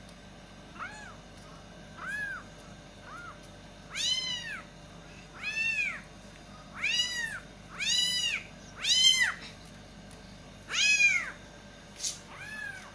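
Young kittens meowing repeatedly for their mother cat: about ten high-pitched calls, each rising and falling in pitch, faint at first and louder from about four seconds in. A sharp click comes near the end.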